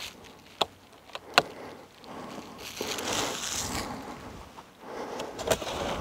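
A few sharp clicks and knocks from handling an electric scooter, then a longer rustling, crinkling noise, twice.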